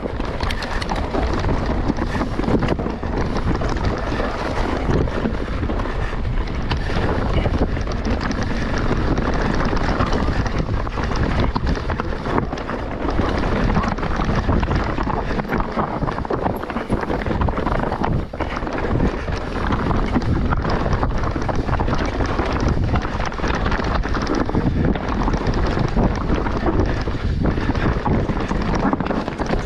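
Wind buffeting an action camera's microphone during a fast mountain-bike descent, over the steady noise of the tyres on the trail. Frequent knocks and rattles come from the bike over rough ground.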